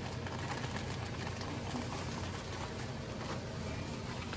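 Homemade barbecue sauce of melted butter, onions and sauce simmering in a saucepan on a gas stove: a steady hiss with faint ticks.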